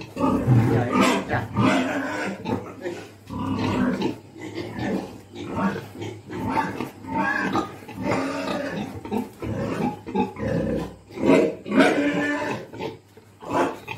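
Pigs grunting during mating: a continuous string of short, irregular grunts as a breeding boar mounts a sow, loudest a little after the middle.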